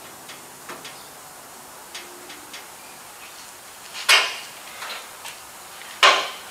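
Light clicks and knocks of tools and metal parts being handled, with two short, louder rasping noises about four and six seconds in.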